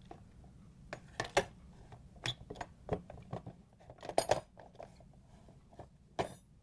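Hard plastic ice-crusher cover of a refrigerator ice dispenser being slid onto the auger over its metal crusher blades: a string of sharp clicks and clattering knocks, loudest about a second and a half in and around four seconds in, with one more near the end.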